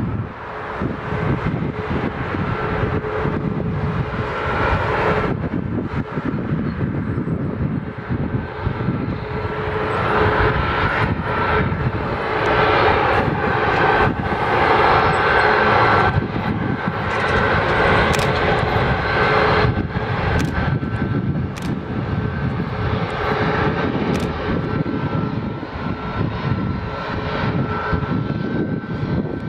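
Boeing 737-8 MAX's CFM LEAP-1B turbofan engines running at taxi power as the jet rolls toward the listener: a steady whine over a low rumble. The sound swells for several seconds around the middle.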